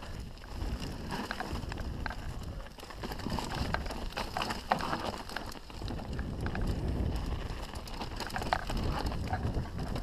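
Canyon Strive enduro mountain bike descending a rocky dirt trail: tyres rolling and skidding over dirt and stones with a steady rumble, the bike rattling with scattered clicks and knocks over the rocks, and wind buffeting the microphone.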